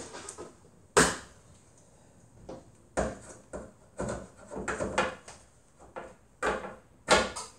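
A string of irregular knocks and clacks from parts being handled in a car's open engine bay, the loudest about a second in and again near the end.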